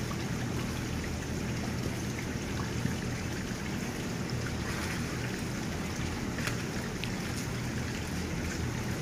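A steady low hum and rushing background noise, with a few faint, short crackles of loose cocopeat being pressed and spread into a plastic seedling tray by hand.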